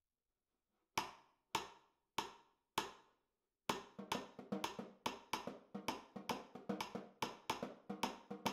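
Cross-stick rim clicks on a Beli-shell snare drum, the stick striking its Lebombo ironwood hoop with a dry, woody click. Four single clicks about half a second apart come first, then from about three and a half seconds in a steady, accented groove of several clicks a second.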